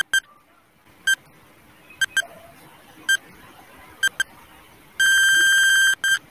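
Countdown timer sound effect: short high electronic beeps about once a second, a few of them doubled, then a long beep of about a second near the end, followed by one more short beep. The long beep signals that time is up.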